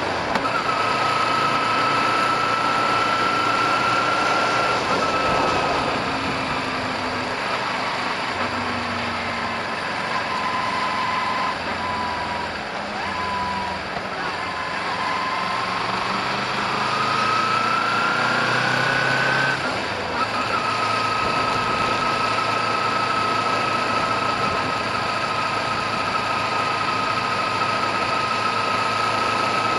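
Kawasaki Ninja 250R's parallel-twin engine running while riding at low speed, heard from a bike-mounted camera with wind noise. The engine note sinks in the middle as the bike slows, climbs again as it accelerates, drops sharply at a gear change about twenty seconds in, then holds steady.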